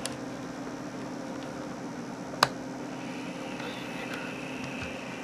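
A single sharp click about two and a half seconds in, over a steady low electrical hum and faint hiss. A faint high whine sets in about three seconds in.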